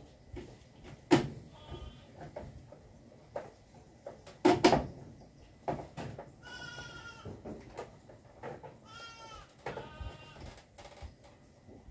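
A goat bleating, three wavering calls in the second half. A few sharp knocks and clicks come before them, the loudest about four and a half seconds in.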